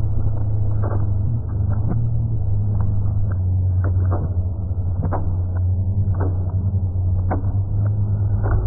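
Experimental electronic album track: a heavy, steady low rumbling drone, with irregular sharp clicks and crackles about once a second.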